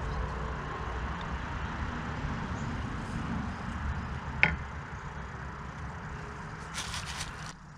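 Steady low rumble with one sharp click about four and a half seconds in and a brief clattering rattle near the end, as small metal parts of a motorcycle floorboard are handled.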